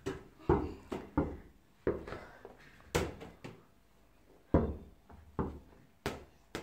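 Toy ball being kicked and bouncing on a hard tiled floor: about nine sharp thuds at uneven intervals, each with a short ringing tail.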